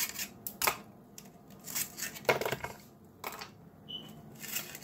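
Ice cubes dropping one after another into a clear plastic cup of coffee: about half a dozen separate clinks and knocks.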